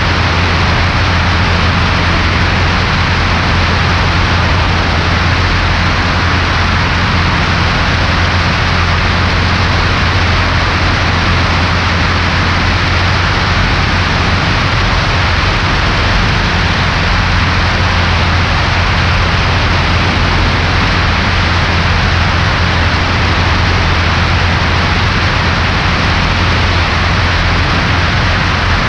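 Cessna 140A light aircraft's engine and propeller running steadily in flight: a constant low drone under heavy rushing airflow noise, picked up out at the left wing.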